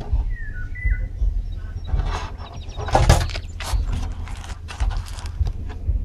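Rustling and sharp clicks of a clear plastic seedling box being handled, loudest about three seconds in, over a low rumble. A few short bird chirps come about half a second in.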